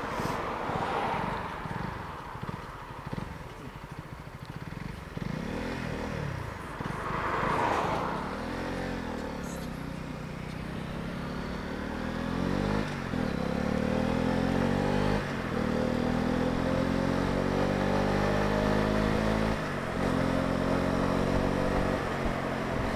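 Honda CB125R's single-cylinder engine under way: the pitch rises and falls a few times as the bike moves off, then climbs steadily through the gears, with brief drops at three gear changes in the second half.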